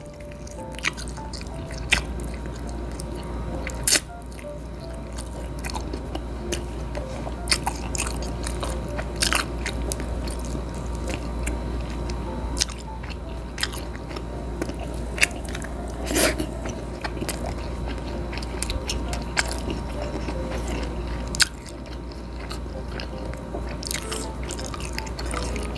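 Close-miked eating by hand: a person chewing and biting food, with many short, irregular wet clicks and mouth smacks. A steady low hum runs underneath.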